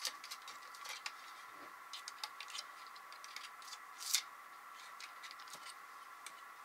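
Scattered faint clicks and scratches of hands working on a plastic model train car to pick a packing peanut out of it, with one louder click about four seconds in. A faint steady hum runs underneath.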